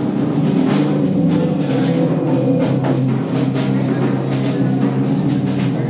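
Live experimental electronic music from synthesizers and electronics: a steady low drone with irregular noisy percussive hits over it.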